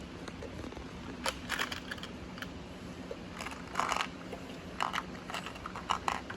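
Small metal bolts being picked through and handled: scattered clicks and short rattles, a little stronger about a second in, around four seconds in and near the end.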